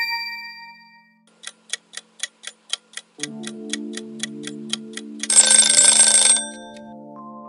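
Quiz countdown timer sound effect: a chime fades out, then a clock ticks about four times a second over a low held tone, ending in an alarm-clock bell ringing for about a second to mark time up.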